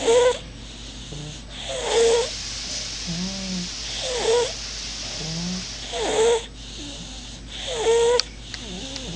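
Baby snoring, with a loud pitched snore about every two seconds, five in all, and quieter breathy sounds between them.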